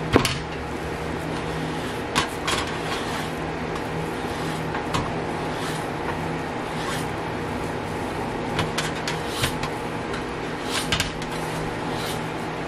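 Scattered sharp knocks and clicks of kitchen cookware being handled on a counter over a steady background hum; the loudest knock comes right at the start.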